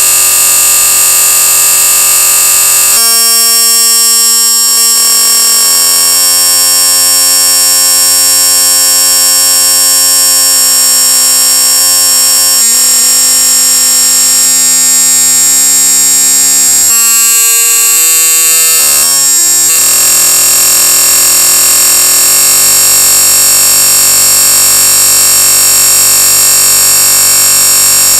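A very loud, harsh alarm-like sound made of many steady tones over a strong high hiss, its pitches shifting in steps every second or two, choppiest around a third and two-thirds of the way through.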